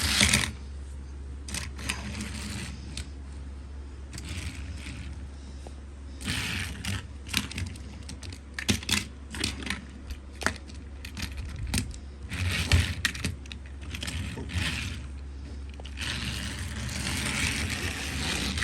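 Plastic Push-Along Percy toy train pushed by hand along plastic track, its wheels and couplings clicking, knocking and scraping in irregular clusters, thickest in the middle.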